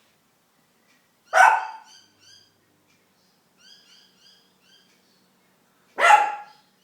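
A small Shih Tzu puppy barks twice at his own reflection, one sharp bark about a second and a half in and another near the end. Faint high chirps come in between.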